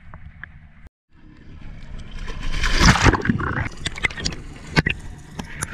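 Water splashing and bubbling close around a camera as it goes under the sea surface, loudest about two to three seconds in, then a muffled underwater wash broken by scattered sharp clicks.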